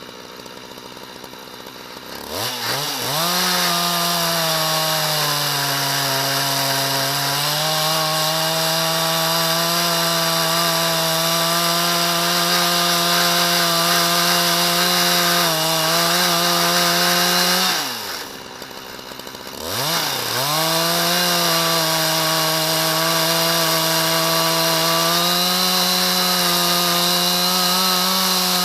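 Husqvarna 372 XPG two-stroke chainsaw on a chainsaw mill, with a ripping chain, cutting lengthwise through a dry, hard ash log. It idles, then revs to full throttle about two seconds in and runs steadily in the cut, its pitch sagging under load for a few seconds. About two-thirds of the way through it drops back to idle for a moment, then revs up and cuts again.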